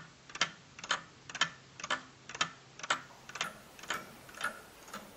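A 3D-printed mechanical clock's escapement ticking steadily, about two ticks a second.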